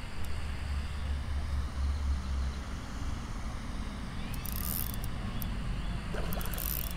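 Steady low outdoor rumble, with two short splashy bursts in the second half as a hooked bullhead catfish thrashes at the surface.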